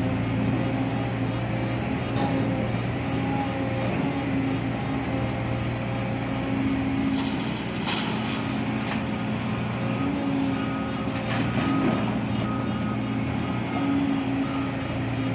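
Heavy construction vehicle engine running steadily, with a couple of short knocks partway through.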